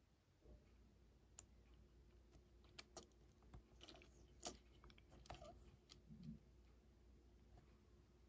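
Faint scattered clicks and taps of small objects being handled, the sharpest about four and a half seconds in, over a low steady hum.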